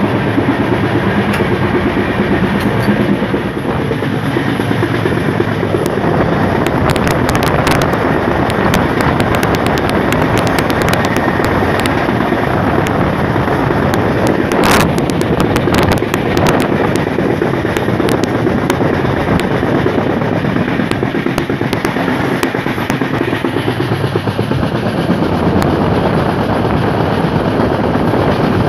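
AC double-decker express train running at speed, heard from the open coach doorway: a steady loud rush of wheel rumble and wind. Through the middle stretch come rapid clicks of the wheels over rail joints and points, with one sharp clack about halfway through.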